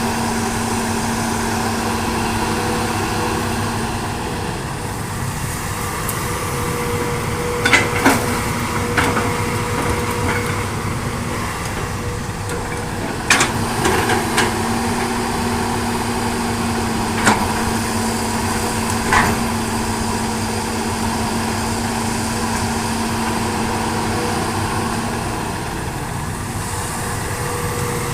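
Hitachi hydraulic excavator running steadily at work, with a steady hum and about six sharp metal clanks spaced a few seconds apart.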